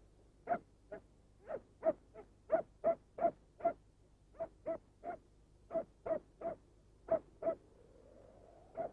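A dog barking repeatedly in short, sharp barks, often in quick pairs, about two to three a second, with a brief pause near the end.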